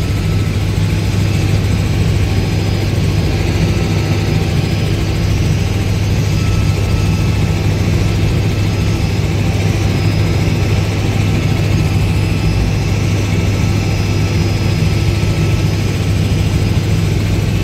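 Helicopter in flight: a loud, steady drone of rotor and engine with a constant low hum.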